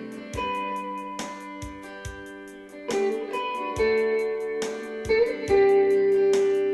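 Instrumental break in a song: a sustained guitar melody over held chords, with a steady beat of light ticks and soft low hits.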